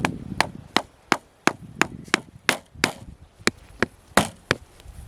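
A tool striking a wooden peg in rapid, even blows, about three a second, stopping about four and a half seconds in.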